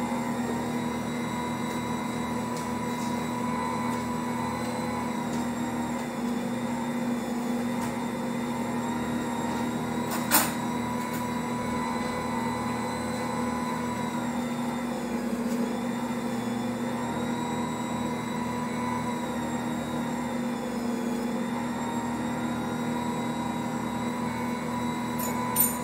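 Ankarsrum Assistent stand mixer running steadily with a low hum while its dough hook kneads bread dough in the turning steel bowl. A sharp click about ten seconds in and another near the end.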